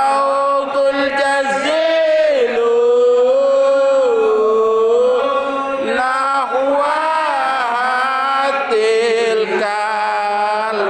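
Men's voices chanting an Arabic sholawat, a devotional hymn to the Prophet, in slow, long-held notes that waver and glide between pitches.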